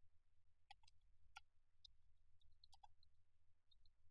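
Faint, irregular clicks of computer keyboard keys being typed, over a low steady hum.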